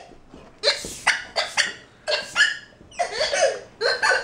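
A dog chewing a durable blue rubber squeak toy, squeezing out a string of short squeaks about once a second.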